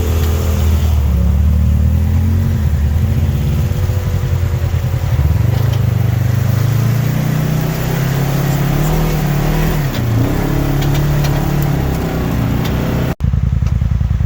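Polaris side-by-side UTV engine running under way on a trail, its pitch rising and falling with the throttle. A sudden break near the end.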